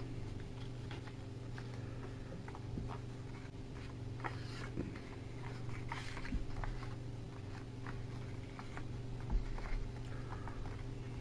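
A folded sheet of white paper being handled and shaped into a paper airplane, crinkling and crackling softly in irregular small bursts, over a steady low hum.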